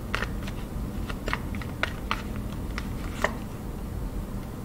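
A deck of tarot cards being shuffled by hand: a run of light, irregular card clicks and flicks that stops about three and a half seconds in.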